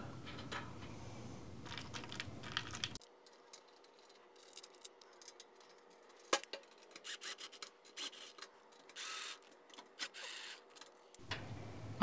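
Faint scraping and light metallic clicks of a patch panel's mounting screws being threaded by hand into the nuts on a network rack's rails, with one sharper click about halfway through.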